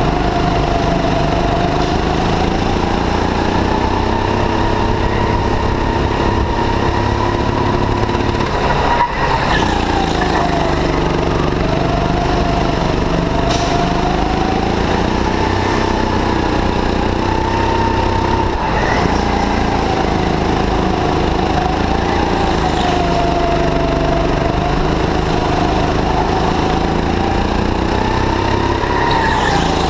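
Go-kart engine heard from on board, its pitch rising on the straights and dropping into each corner as the throttle comes on and off, over and over.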